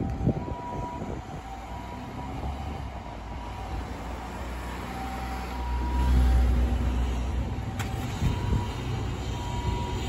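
Japanese ambulance siren at reduced volume, faintly alternating between its two tones in the familiar pee-poh pattern, over a deep rumble that swells and peaks about six seconds in. A sharp click comes near eight seconds.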